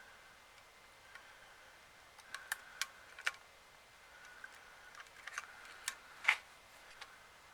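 A few sharp little clicks and taps scattered through the middle, the loudest about six seconds in, over a faint steady high hum: small plastic parts and tools being handled during a handheld console repair.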